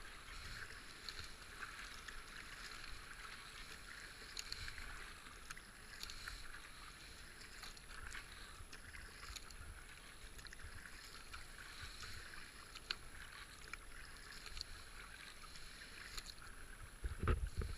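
Kayak paddling down fast river water: a steady faint rush of moving water around the hull, with soft paddle-blade splashes every second or two. A louder low thump near the end.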